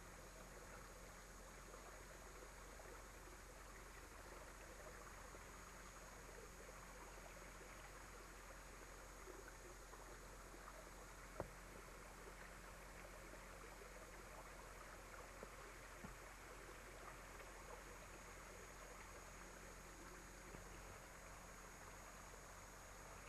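Near silence: the steady hiss and hum of an old camcorder recording, with one sharp click about halfway through.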